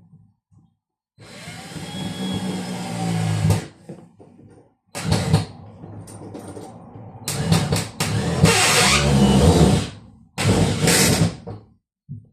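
Cordless drill-driver driving wood screws into a wooden cupboard, its motor running in several bursts of one to three seconds, the first growing louder as the screw bites in.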